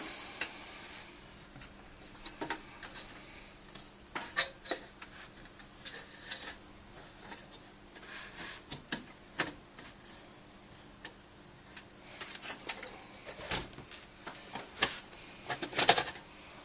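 Scattered clicks, knocks and short scrapes of a hard drive in its metal mounting bracket being handled and fitted back into a desktop computer case.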